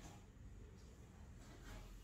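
Near silence, with faint soft scuffs and cardboard rustles as a Savannah cat climbs into a torn cardboard box, a little more toward the end.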